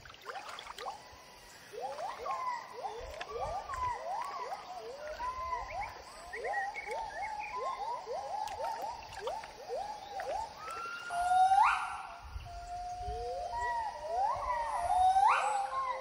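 Pileated gibbons singing: a quick run of short hoots that swing up and down in pitch, then about eleven seconds in, and again near the end, a louder call that climbs steeply to a high held note.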